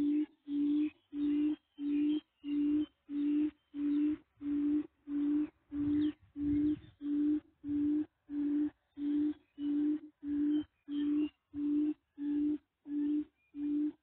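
A low bird-like hoot, one note repeated evenly about twice a second through a small loudspeaker, most likely a recorded call played as a lure at a bird trap. It stops abruptly near the end.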